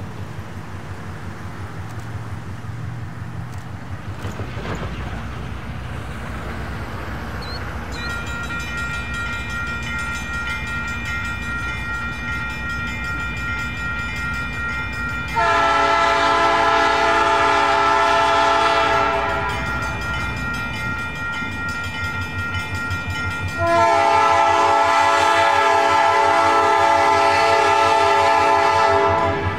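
Nathan P5 five-chime air horn on an EMD GP9RM diesel locomotive sounding two long blasts, the first about halfway in and a longer second one near the end, over the steady low rumble of the locomotive and train.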